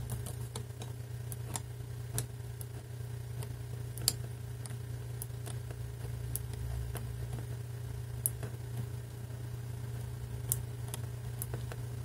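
Number dials of a Master Lock 651 brass combination padlock being turned with a knife blade pressed against them, giving scattered small clicks about once a second as the dials step from number to number, over a steady low hum.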